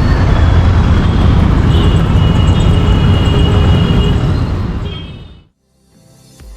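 Royal Enfield Interceptor 650's parallel-twin engine running steadily on the move, fading out about five seconds in. Music begins right at the end.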